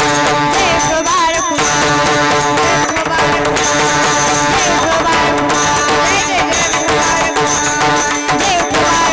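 Marathi devotional bhajan music: a held drone under a wavering melody, with steady drum percussion.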